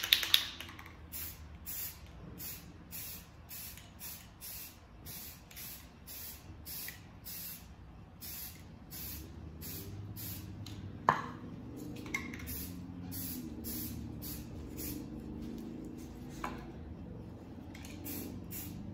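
Rust-Oleum Camouflage aerosol spray paint can spraying in short hissing bursts, about two a second, laying down freehand camouflage patches. A few sharp knocks come through, one near the start and a couple just past the middle.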